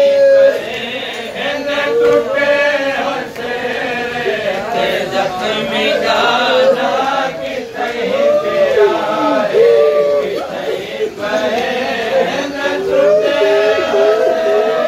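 Men chanting a noha, a Shia lament for Qasim. Reciters lead a mournful melody with long, bending held notes, and the gathered men sing along.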